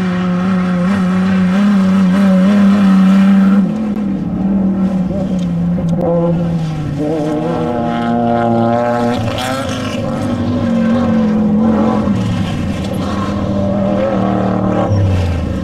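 Off-road desert race vehicles' engines running hard and passing one after another, their pitch rising and falling. The loudest engine is in the first few seconds and drops away sharply just before four seconds in.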